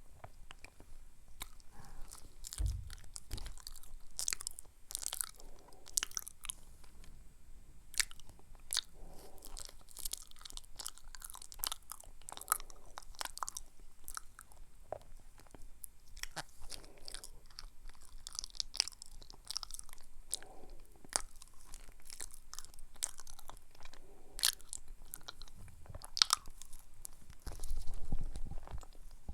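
Close-miked chewing of banana: soft wet mouth clicks and smacks scattered irregularly, with a low bump about three seconds in and a longer one near the end.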